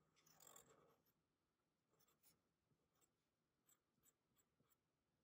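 Very faint scratching of a black permanent marker drawing on black paper, in a few short strokes.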